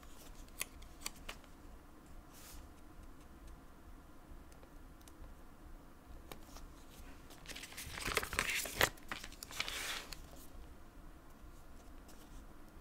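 Paper planner stickers being handled, peeled from their backing sheet and pressed onto a notebook page: light taps and paper rustling, with a louder stretch of crinkling about eight to ten seconds in.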